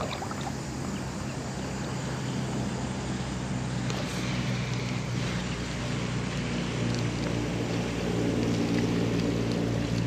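Road traffic: a steady even noise with a low engine hum that grows louder toward the end as a vehicle comes closer.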